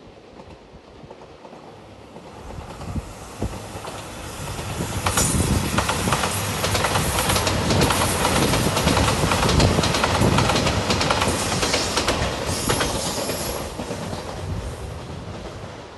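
A JR Shikoku 2700 series diesel limited express train passing at speed. It builds up, clatters loudly over the rail joints through the middle with a steady stream of wheel clicks, then fades away.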